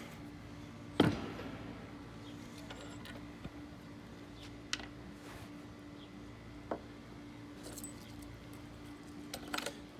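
A sharp metallic clack about a second in, then a few light clicks and clinks of the crushed fake watch's small metal parts and the vise being handled, over a steady low hum.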